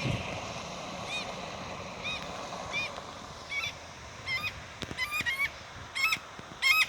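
A passing car's noise fades over the first few seconds while a bird gives short, shrill calls again and again, coming faster and louder toward the end.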